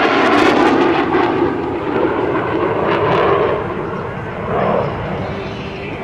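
Jet noise from two Blue Angels F/A-18 Hornets, with their twin turbofan engines, flying past in close formation. It is loud for the first three seconds or so and then fades as they pull away.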